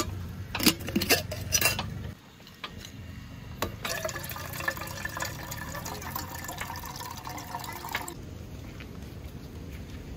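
A few sharp clinks, like cups or cookware knocking, in the first two seconds. Then liquid is poured into a container for about six seconds and stops abruptly about eight seconds in.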